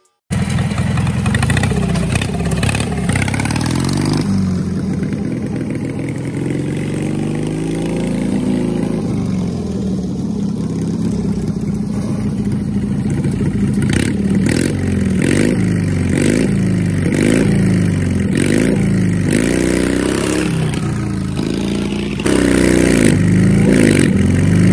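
Murray riding lawn mower's small gas engine running under throttle. Its pitch swings up and down over and over, as it is revved and loaded. It gets louder near the end.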